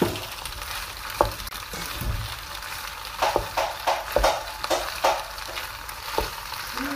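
Boiled elbow macaroni frying in ghee and oil in a pot, giving a steady sizzle. It is stirred with a wooden spoon, which knocks and scrapes against the pot several times, mostly about three to five seconds in.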